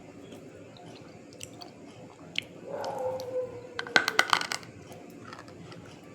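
Close-up chewing of a hard, brittle piece of something crunchy: scattered crisp cracks, then a quick run of half a dozen sharp crunches about four seconds in, and a few softer ones after.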